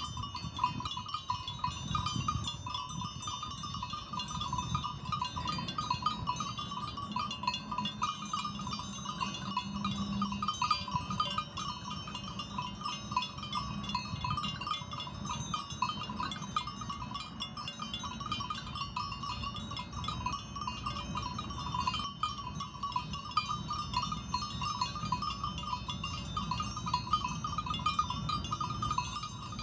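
Outdoor ambience of a sheep pasture: a steady, dense high-pitched chorus over a low rumble, with a faint low call around ten seconds in.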